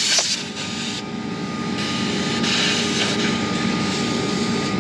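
Pressurised nitrogen hissing out of a refrigeration compressor's service valve as a cap is worked on to stop it. The hiss drops about a second in but keeps going, over a steady mechanical drone with a hum.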